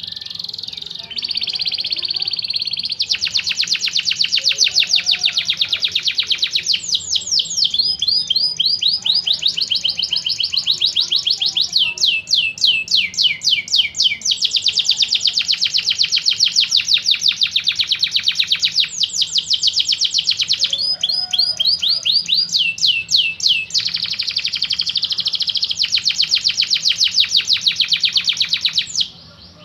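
Canary singing a long, unbroken song of rapid trills: fast trains of repeated notes that switch to a new phrase every two to four seconds, some phrases made of quick falling sweeps. The song stops abruptly near the end.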